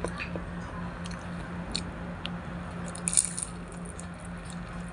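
Close-up eating sounds of a person biting and chewing a fried banana turon: moist mouth clicks and smacks, with a crisp crunch of the fried wrapper a little after three seconds. A steady low hum runs underneath.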